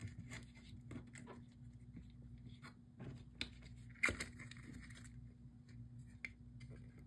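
Faint handling sounds of a silver bar being pressed into its display stand and the stand being picked up: a few light clicks and scrapes, with one sharper knock about four seconds in, over a steady low hum.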